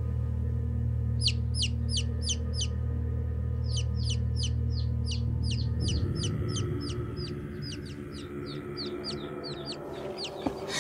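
A baby chick peeping: runs of short, high cheeps that fall in pitch, about three or four a second, starting about a second in, over a low steady drone that fades about six seconds in.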